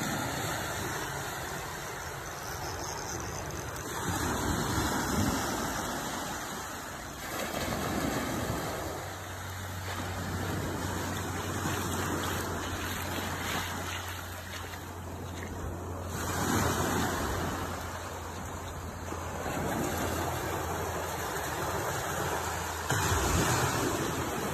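Small ocean surf breaking and washing up the beach, a rushing hiss that swells and fades every few seconds, with a steady low hum underneath from about a third of the way in.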